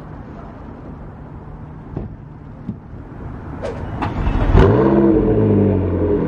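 Street hum with a few clicks, then about four seconds in a McLaren 12C's twin-turbo V8 cold-starts, flaring up in revs and settling into a loud, steady fast idle.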